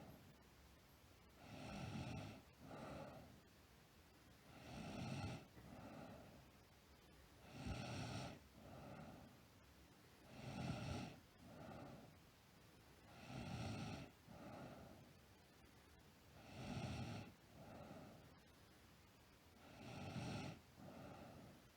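A sleeping girl snoring with a steady rhythm, about once every three seconds. Each breath brings a longer, louder snore followed by a shorter, softer one.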